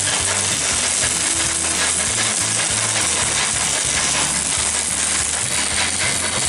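Electric arc welding (stick welding): a steady, loud crackling sizzle from the arc, with the low hum of the welding machine underneath.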